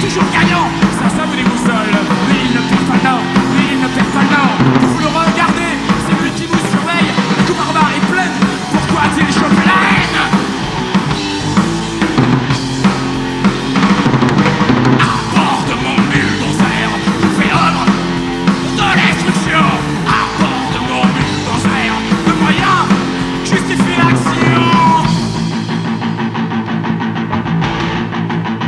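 Punk rock band playing live, drum kit to the fore over guitars and bass. Near the end the drums drop out and the guitar carries on.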